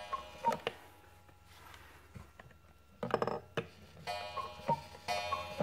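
Cuckoo clock calling as its minute hand is turned by hand: the two-note whistle, high then low, sounds once at the start and then, after a short clatter about three seconds in, repeats about once a second.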